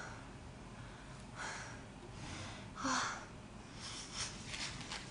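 A woman's soft breaths close to the microphone, three short puffs about a second and a half apart, then faint light clicks and rustling near the end.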